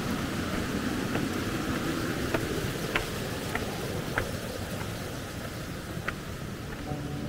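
Steady rush of flowing water with a handful of sharp, irregular ticks over it. Background music comes in near the end.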